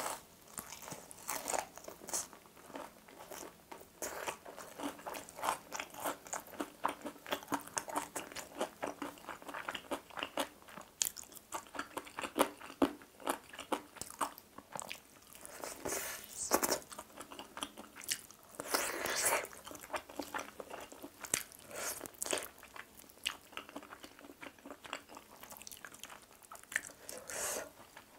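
Close-miked crunching and chewing as crispy fried chicken drumsticks are bitten into and eaten, with many irregular crackles and several louder crunches along the way.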